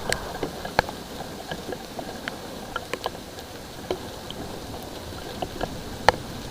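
Light rain: a steady hiss with scattered single drops tapping, the sharpest about a second in and again near the end.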